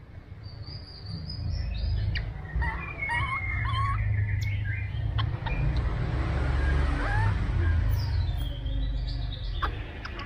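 Baby macaque giving a string of thin, high squeaks and coo calls, some gliding up or sliding down in pitch, over a steady low rumble.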